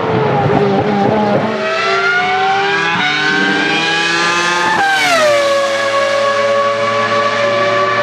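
Ferrari Formula 1 car's high-revving engine. It sounds rough and uneven for the first second or so, then rises steadily in pitch as it accelerates hard. About five seconds in the note falls quickly as the car sweeps past, then holds a lower, steady tone.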